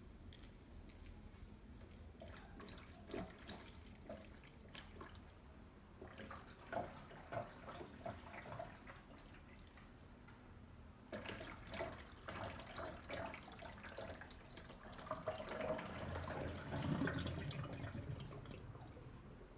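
Water draining out of an LG washing machine, faint dripping and splashing at first, then a fuller, steadier flow in the second half. The drain runs after an improvised copper-wire fix to the drain switch, which seems to have worked.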